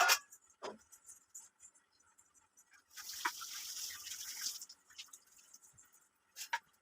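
Light clicks and knocks of kitchen work, with a steady hiss lasting about a second and a half midway.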